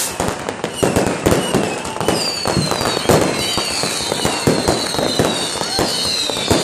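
Dense fireworks: rockets and firecrackers going off in rapid, overlapping bangs and crackle. From about two seconds in, several high whistles slide down in pitch over the bangs.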